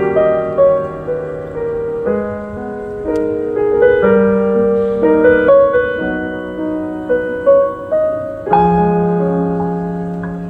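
Piano playing the closing instrumental bars of a slow song: a melody over sustained chords, ending on a held chord struck about eight and a half seconds in that rings out and slowly fades.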